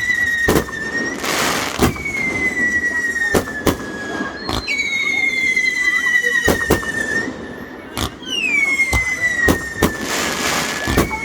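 Consumer fireworks whistling: about four long screeching whistles in a row, each dropping quickly in pitch at the start and then sliding slowly lower for two or three seconds. Sharp bangs and short bursts of crackling hiss go off between and over the whistles.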